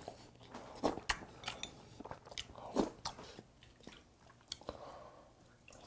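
Faint eating sounds: scattered clicks of a spoon and ladle against the dishes, with soft sipping and chewing of croaker soup.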